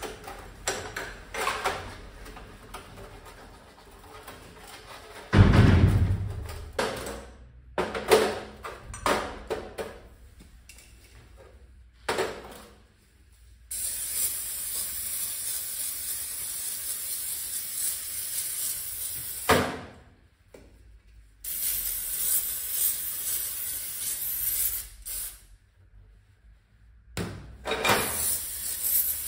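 Workshop knocks and clatter of metal parts, with one heavy thump about five seconds in. After that come three long bouts of steady hissing spray, the longest about six seconds.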